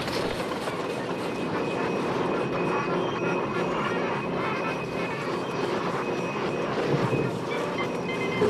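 Steady, dense mechanical rumbling noise, like a large vehicle running, with a few faint sustained tones in it.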